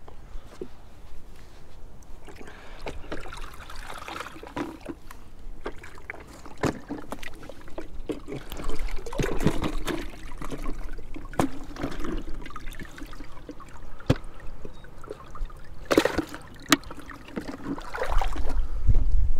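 Small waves lapping and sloshing against shoreline rocks in uneven splashes, with a few sharp clicks. Near the end a low rumble of wind on the microphone comes in.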